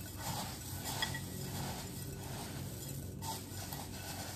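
Faint rustling and crunching of puffed rice with grated coconut and sugar, with a few light clicks.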